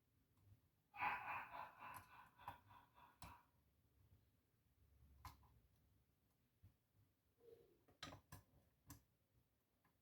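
Faint small clicks of a lock pick and tension wrench working the pins of a pin-tumbler lock held in a false set. A louder rasping sound lasts about two seconds, starting a second in, and a quick run of clicks comes near the end.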